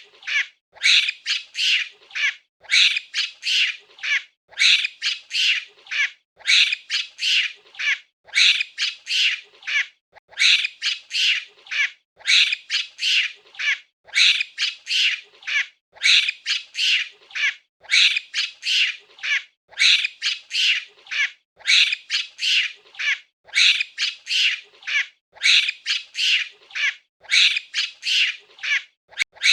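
Monkey giving shrill, high-pitched squealing calls in quick bursts of several notes, one burst about every two seconds.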